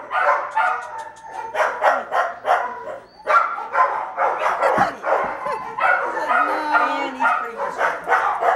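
Small dog barking rapidly and repeatedly, high excited yaps several times a second with a brief lull about three seconds in: play barking over a tennis ball in a game of fetch.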